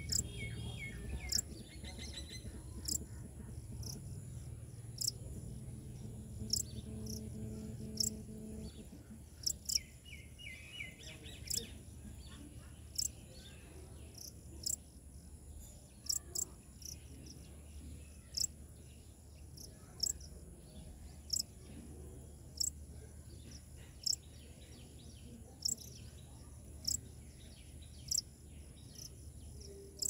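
Outdoor insect and bird ambience: a steady high-pitched insect trill under a short, sharp high chirp repeated about every second and a half. Brief bird twitters come about a second in and again around ten seconds in.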